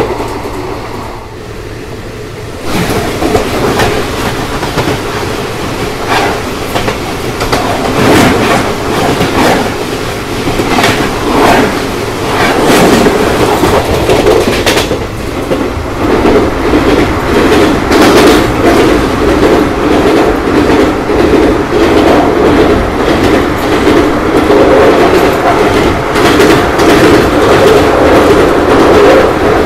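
Express train running on the line, its wheels clacking over the rail joints against a steady loud rumble. It is quieter for the first couple of seconds, then louder, with the rumble strongest in the second half.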